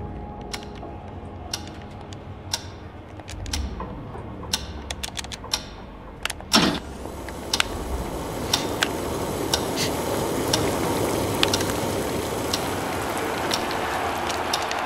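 Film sound design over black: scattered sharp clicks and ticks over a low rumble, then a quick falling whoosh about six and a half seconds in. After it a hiss swells and holds, with irregular clicks roughly once a second.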